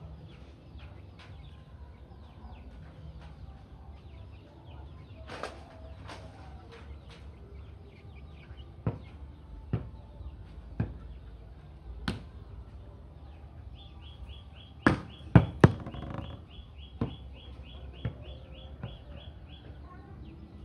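Sharp slaps of a volleyball being struck by hand, spaced irregularly, the loudest a close pair about three-quarters through. A rapid high-pitched chirp repeats about three times a second for some six seconds in the second half, over a steady low background rumble.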